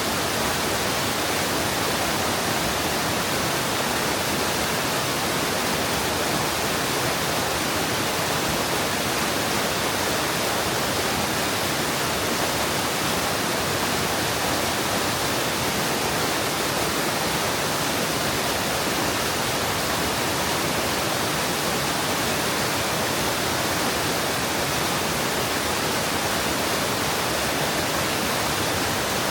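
Mountain stream water flowing into a pool, a steady, even rush with no breaks.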